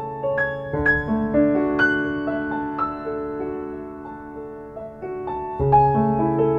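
Background piano music: a slow, gentle melody of single struck notes over held chords, with a new chord coming in about a second in and again near the end.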